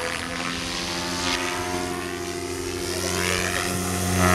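Align T-Rex 600E electric RC helicopter flying 3D aerobatics: a steady hum from its motor and rotor, with sweeping whooshes from the blades, growing louder near the end.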